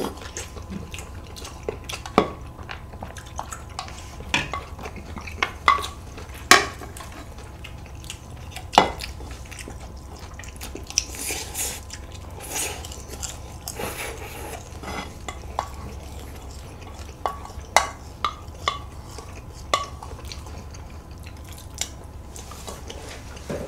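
Eating at the table: chopsticks and spoons clicking and scraping against bowls in scattered sharp clicks, with soup being slurped from a bowl. A steady low hum runs underneath.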